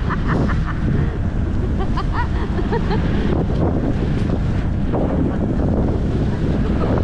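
Wind buffeting the microphone in a steady rumble, with short voices calling out during the first three seconds.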